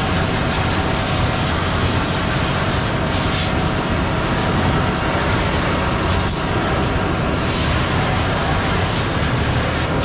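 Concrete mixer truck's diesel engine running steadily, with the hiss of a hose spray nozzle rinsing water into a plastic tank. A single sharp click about six seconds in.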